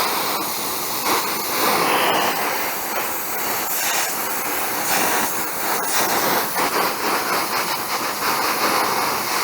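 Gas torch flame hissing steadily, heating a steel pedal lever so it can be bent.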